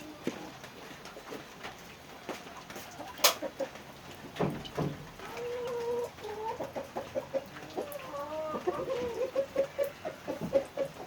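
Chickens clucking in a quick run of short calls through the second half, after a few sharp knocks, the loudest about three seconds in.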